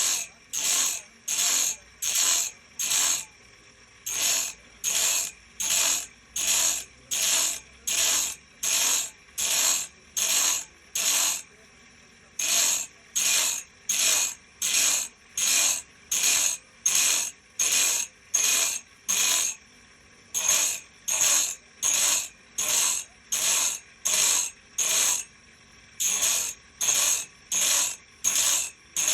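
Hand file rasping across the steel teeth of a sawmill blade in steady back-and-forth strokes, about two a second, pausing briefly a few times as the file moves to the next tooth: the blade being sharpened by hand.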